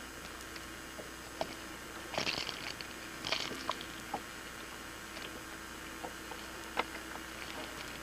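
Scattered small clicks and brief scratchy rustles from a fishing rod, reel and lure being handled, two louder scrapes about two and three seconds in, over steady tape hiss.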